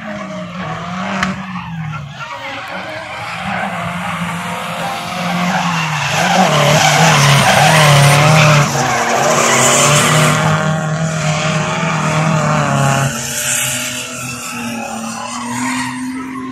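Drift cars sliding through a corner, their engines revving up and down over the screech of spinning, sliding tyres. It builds to its loudest about six to ten seconds in as they pass, then eases off.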